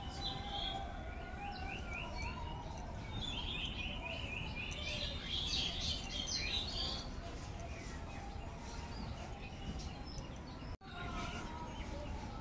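Small birds chirping in the background: runs of short, quick, repeated chirps in the first half, fading to a low steady background later.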